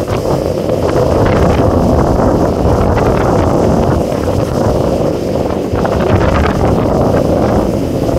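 Loud wind buffeting the microphone over a steady rush of churning sea water, with a pilot boat under way alongside a cruise ship's hull.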